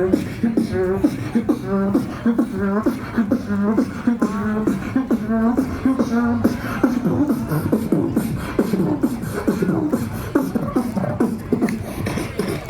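Beatboxing: a steady rhythm of mouth-made drum hits with a pitched vocal line bending up and down over the beat.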